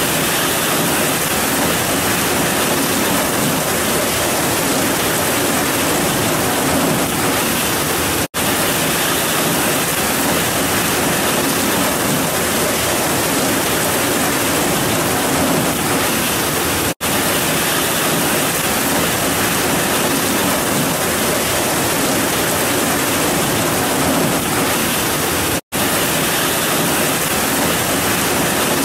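Heavy rain pouring down in a steady, dense hiss, with no thunder. The sound cuts out for a split second three times, evenly spaced about eight and a half seconds apart.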